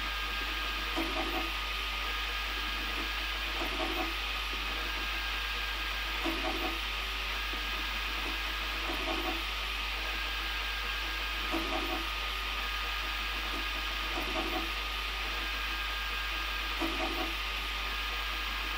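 Prusa i3 Mk2 3D printer running a print: a steady fan whir with a thin constant tone, and the stepper motors giving short pitched hums in pairs about every two and a half seconds as the print head moves.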